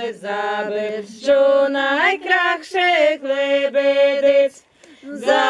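A small group of voices singing a Ukrainian folk song a cappella, drawing out long held notes that slide between pitches. There is a brief pause for breath near the end before the next line starts.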